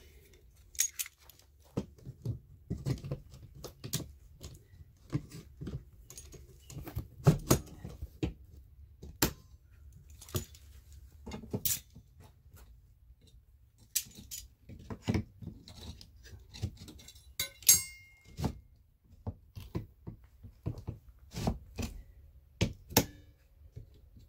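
Metal siding gauge tools and locking-plier clamps clicking, clattering and knocking against fibre-cement lap siding as they are clipped on and clamped, with a short metallic rattle near the end.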